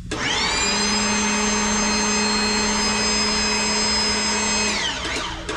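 Hydraulic shop press's pump motor spinning up, running steadily with a high whine and a lower hum while the ram pushes down on a seal, then winding down near the end.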